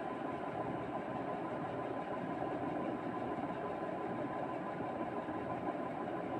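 Steady, unbroken background hum with a faint constant whine, like a running fan or motor.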